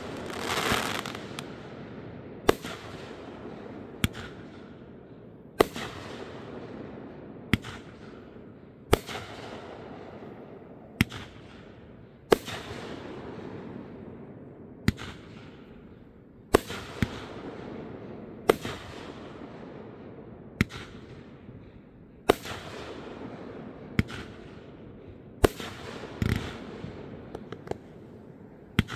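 Aerial fireworks going off in a steady sequence: a sharp bang roughly every one and a half to two seconds, each followed by a fading hiss. One louder, deeper burst comes near the end.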